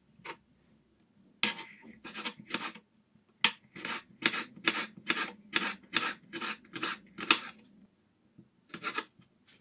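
Kitchen knife slicing frozen bell pepper into thin strips on a plastic cutting board: quick, even strokes about two to three a second, each a crisp cut ending against the board. After a pause, two more cuts come near the end.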